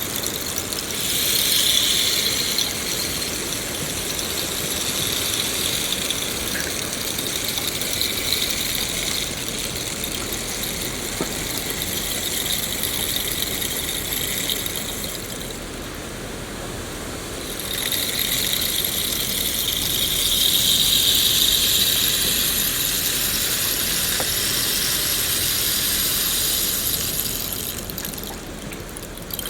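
Steady rain falling, a dense hiss that swells and eases now and then.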